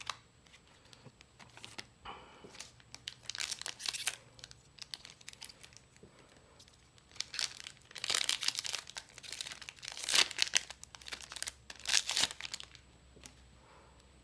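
Foil wrapper of a Final Fantasy Trading Card Game booster pack crinkling and tearing as the pack is opened, in several bursts, the loudest in the second half.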